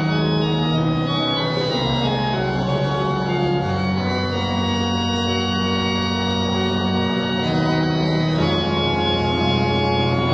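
Organ playing slow, sustained chords over held bass notes, the harmony changing every couple of seconds.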